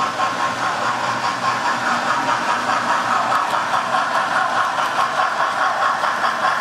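Model railway steam locomotive and freight wagons running along the track: a steady mechanical whirring rattle of motor and wheels that pulses evenly a few times a second.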